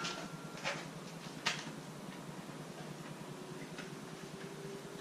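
A few light, sharp clicks and taps from jacking gear being set under the Jeep's frame, spaced about a second apart, with a faint steady hum coming in about three seconds in.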